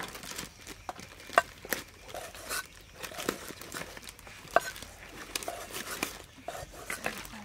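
A steel cleaver chopping raw chicken breast on a wooden chopping block: a series of irregular sharp knocks, the loudest about one and a half and four and a half seconds in.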